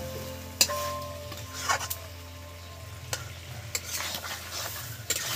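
A spatula stirring chicken curry with potatoes in a hot pan over a light sizzle, with a few sharp, irregular scrapes and knocks against the pan.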